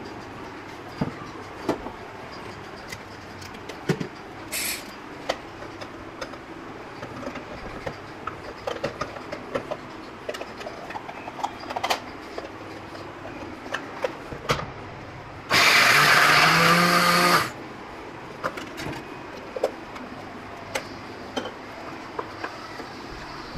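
Electric hand blender with a chopper attachment running in one burst of about two seconds, about two-thirds of the way in, grinding a paste. Around it, plastic parts click and clatter as the blender is fitted together, and a spoon scrapes the paste out of the bowl near the end.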